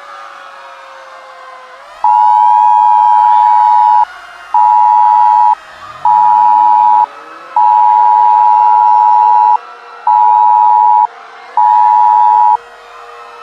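A loud two-tone alert beep sounding six times in a long-short-short, long-short-short pattern, starting about two seconds in, over sirens wailing up and down; one siren winds up from low pitch about six seconds in.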